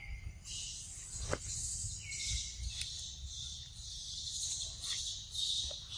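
A high-pitched insect chorus droning in the trees, swelling and fading every second or so, with a few faint clicks and a low rumble underneath.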